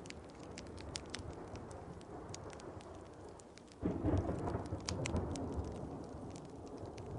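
Steady rain with scattered sharp crackles from a wood fire, then a sudden roll of thunder about four seconds in that slowly fades away.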